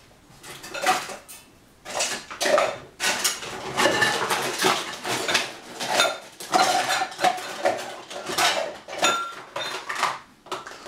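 Metal kitchen utensils and cookware clattering and clinking: irregular knocks and scrapes, with a brief metallic ring or two near the end.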